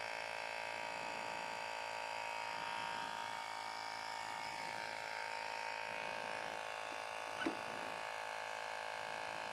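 Microstart 12 V portable tire inflator's small electric compressor running steadily, a buzzing hum with a steady whine, pumping up a tire. A brief higher chirp cuts in once about seven and a half seconds in.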